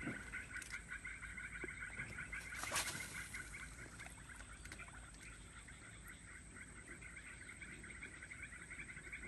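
A steady chorus of frogs calling in rapid pulsing trills from the swamp. A short sharp noise cuts through it about three seconds in.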